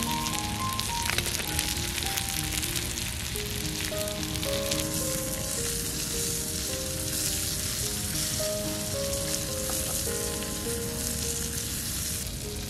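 Pieces of pork belly and octopus sizzling steadily on a hot roof tile over a wood fire. A soft melody plays underneath.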